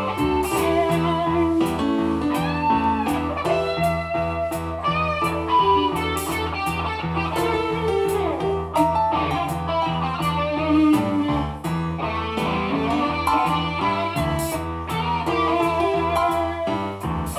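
Live rock band playing an instrumental passage: electric lead guitar with bending notes over a steady bass line and drums.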